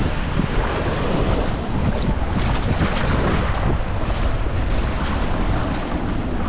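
Small sea waves washing and lapping in shallow surf, with steady wind buffeting the microphone.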